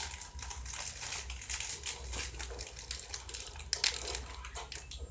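Chocolate bar wrapper being torn open and crinkled by hand: an irregular run of crackles with a louder crackle near the end.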